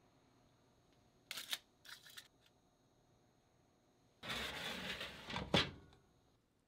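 Aluminium foil crinkling in two short bursts about a second in, then a louder rushing scrape of a stovetop fish-grill drawer being slid shut, ending in a sharp knock as it closes.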